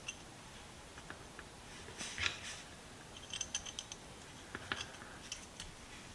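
Small steel parts of an adjustable wrench clicking and clinking as it is reassembled by hand, with a quick run of light ringing ticks about halfway through.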